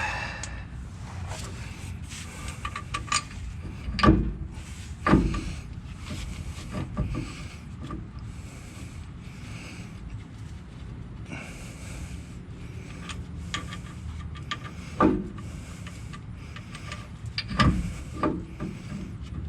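Hand work on a drive shaft and its bolts: scattered metal clinks and knocks with rubbing and rattling, over a steady low hum. A few louder knocks come about four and five seconds in and again near the end.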